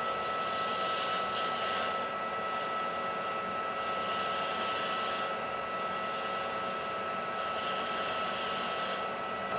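Metal lathe running, turning a stainless steel rifle muzzle brake to a taper: a steady motor whine, with the high hiss of the cut swelling and fading every few seconds.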